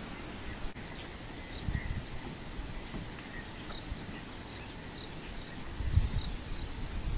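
Outdoor ambience of chirping insects, with a few brief low rumbles, the loudest about six seconds in.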